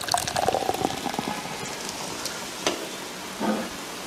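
Soda poured from a can onto a laptop's keyboard, splashing and fizzing with dense crackle in the first second or so, then settling into a steady hiss.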